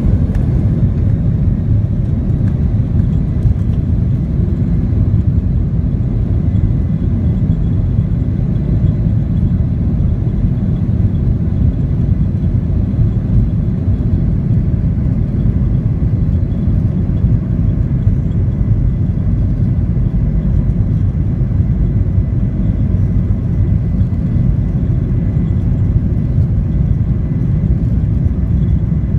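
Steady low rumble in the cabin of a Boeing 737-800 taxiing on the ground, its CFM56-7B engines at taxi power, with a faint high engine whine above it.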